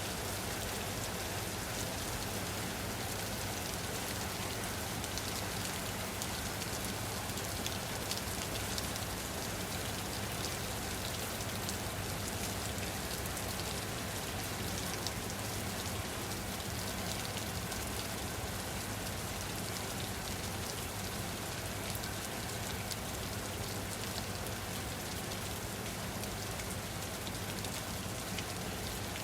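Steady rain falling on a surface, a constant hiss with many small drop taps mixed in.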